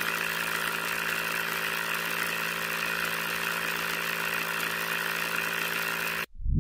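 Small brushed DC motor running steadily as it spins a plastic straw drill bit down into wet sand, then cutting off suddenly near the end.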